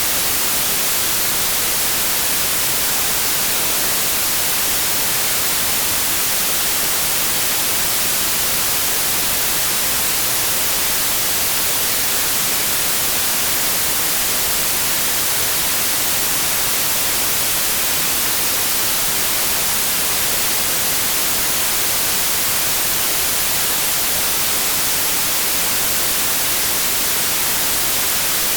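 White noise: a steady, even hiss, strongest in the high frequencies, with no tones or breaks.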